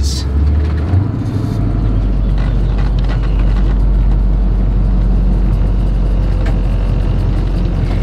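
Engine of a 1984 Blue Bird Wanderlodge bus running as it drives slowly, heard from inside the cab: a steady low rumble that settles into a deeper drone about a second and a half in.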